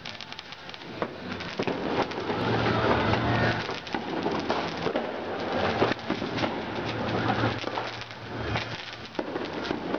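Fireworks and firecrackers going off over a city: a dense, irregular crackle of pops and bangs, with a low drone coming in twice.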